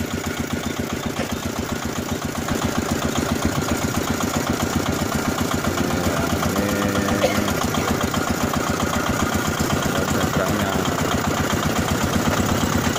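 Small diesel boat engine running steadily with a fast, even beat, driving the ferry across the river; it grows a little louder about two seconds in.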